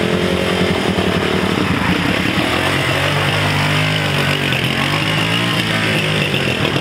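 Small motorcycle engine running as the bike is ridden off slowly, its note settling a little higher about halfway through.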